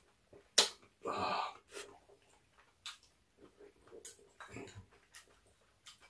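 Eating sounds of a person eating a noodle stew with chopsticks: a sharp click about half a second in, a short slurp around one second, then quiet chewing with small clicks.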